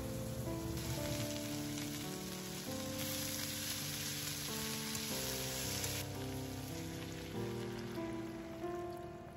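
Cabbage, pork and kamaboko sizzling as they are stir-fried in a frying pan. The sizzle is strongest in the middle and dies down near the end, over gentle background music with sustained notes.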